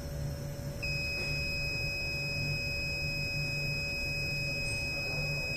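A steady high-pitched electronic beep from the flame photometer's controller starts about a second in and holds unbroken, over a low steady hum.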